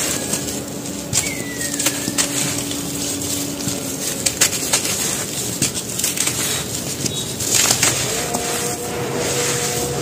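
Dry, dusty cement crumbs and powder crushed in the hands and poured back onto a pile on a concrete floor: a steady gritty crackle with many small crunches.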